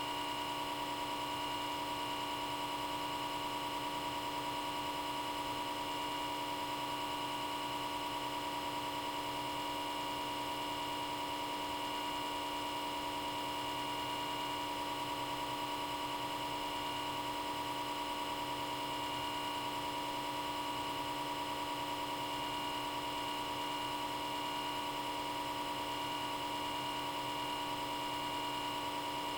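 Small-diameter cooling fan in a Comcast Xfinity X1 DVR cable box running at high speed: a loud, steady hum with several held tones over a faint hiss.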